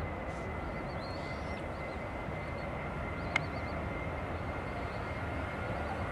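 Distant Boeing 737 jet engines running at takeoff power as the airliner starts its takeoff roll: a steady rumble with a thin high whine. Faint bird chirps and one sharp click about three seconds in.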